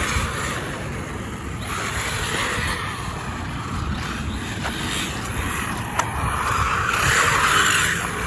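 HAIBOXING 2997a RC car driving around on asphalt, its electric motor and tyres making a hiss that swells and fades as it moves, loudest near the end. Wind rumbles on the microphone, and there is one sharp click about six seconds in.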